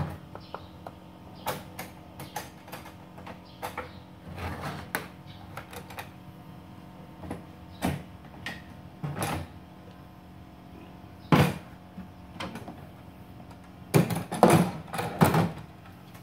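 Sections of a stacking trolley tool box being handled: scattered clicks and knocks as the sections are unclipped, lifted off and set down. There is one loud knock about eleven seconds in and a quick run of knocks near the end.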